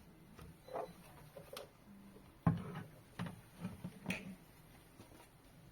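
Faint, scattered clicks and light knocks of hands handling a circuit board and flat ribbon cables inside an opened machine, about half a dozen over several seconds, the sharpest about two and a half seconds in.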